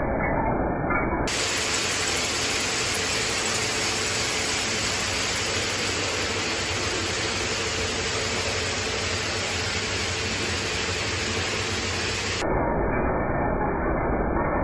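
Rows of shoelace braiding machines running: a steady, dense mechanical clatter and hiss. It sounds duller for about the first second and again near the end, and brighter and hissier in between.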